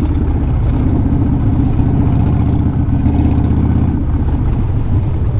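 A vehicle engine running steadily on the move, a low drone that eases slightly about four seconds in.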